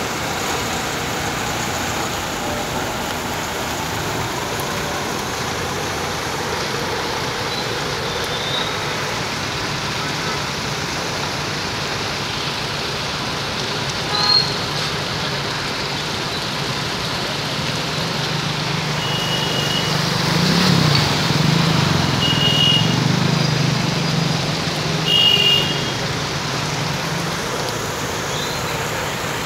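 Heavy rain falling steadily onto a flooded road, an even hiss of water. In the second half a vehicle engine's low hum swells and fades, with a few short high beeps over it.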